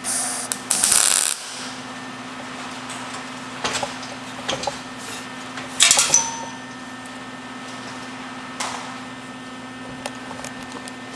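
Stick (arc) welding: a steady electrical hum from the welder with short spells of hissing, crackling arc, the longest in the first second and a half, and scattered sharp clicks between them.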